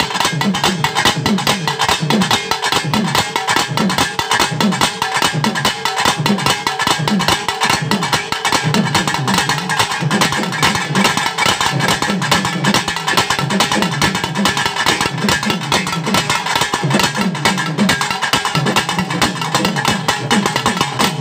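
Pambai, the Tamil pair of stick-played cylindrical drums, played fast. A dense run of rapid strokes sits over a low note that bends up and down over and over.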